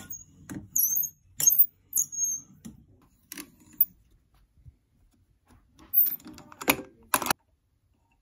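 Hand-held tube cutter being turned around a metal swimming-ladder leg tube, its cutting wheel giving short high squeaks among small clicks. Two louder knocks come near the end.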